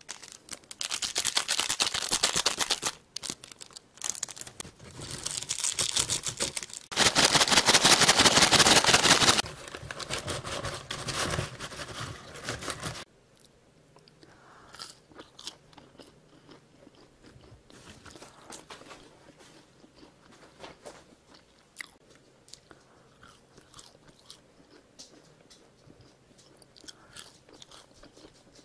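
French fries shaken hard inside a paper bag with seasoning powder: a loud rattling rustle in several bursts for the first dozen seconds, stopping abruptly. Then soft crunching and chewing as the seasoned fries are eaten.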